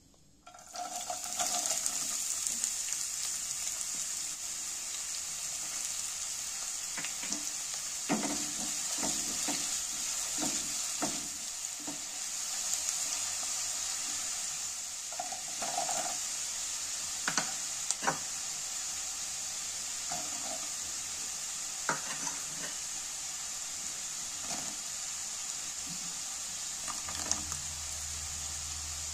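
Chopped onion and green chillies sizzling in hot oil in a non-stick kadhai, the sizzle starting about a second in. A wooden spatula knocks and scrapes against the pan as the vegetables are stirred.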